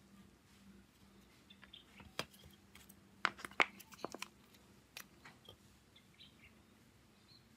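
Small, hard clicks and taps from handling a phone and its parts with tools. A quick cluster of about half a dozen falls around three to four seconds in, with a few fainter single ticks before and after.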